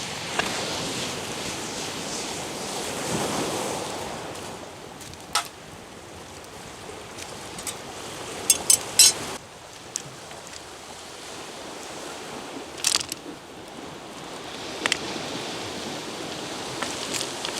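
Steady wash of surf and wind with a bonfire giving a few sharp pops and crackles, several clustered about halfway through.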